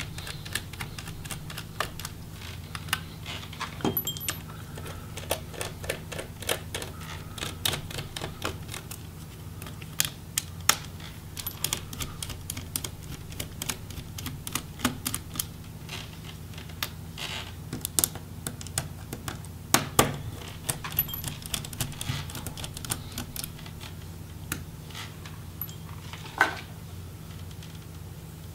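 Light, irregular clicks and taps of a small Phillips screwdriver working tiny metal screws out of a laptop's battery mounts, a few sharper clicks standing out, over a steady low hum.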